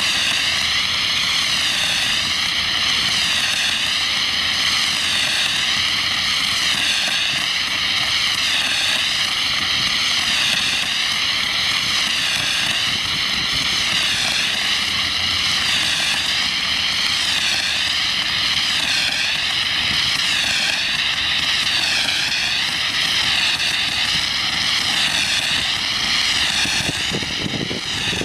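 Steady, loud hiss of Class A foam solution jetting from the 1/2-inch nozzle of a portable Merlin foam system's 3/4-inch discharge hose, its tone wavering slowly up and down as the stream is swept.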